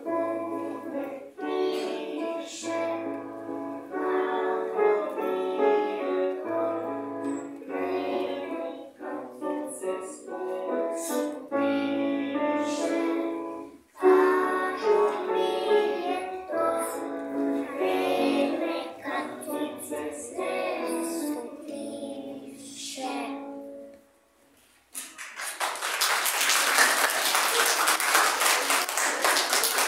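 A group of young children singing a song together with piano accompaniment. The song stops, and after a brief pause an audience applauds for the last few seconds.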